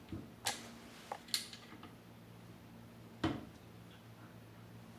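A few sharp clicks and knocks of metal tripod parts as the D4 geared head is handled and seated back onto the tripod column, the last one about three seconds in, over a faint steady hum.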